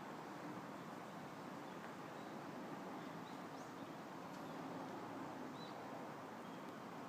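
Steady outdoor background hiss with a few faint, short high chirps from small birds scattered through the middle.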